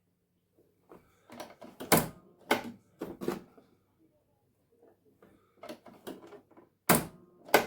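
Brother Innovis sewing machine's needle threader being worked, giving a string of sharp mechanical clicks and clacks with short pauses between them. The threader is failing to thread the needle, which the repairer puts down to a poor-quality needle.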